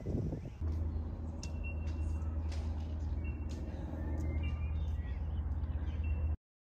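A steady low engine rumble with short, high chirps scattered over it. The sound cuts off abruptly about six seconds in.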